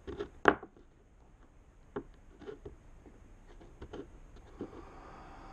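Light clicks and taps of a metal bolt being worked into a hole in a wooden workbench top by hand, the sharpest click about half a second in.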